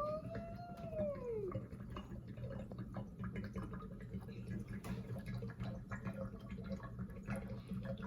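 Water gurgling and dripping through the bottle connector of a two-soda-bottle water tornado as it drains, in many small irregular clicks over a steady low hum. A drawn-out call rising then falling in pitch fades out about a second and a half in.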